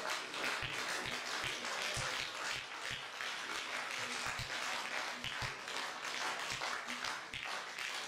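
Audience applauding, a dense steady patter of many hands clapping, with scattered low thuds.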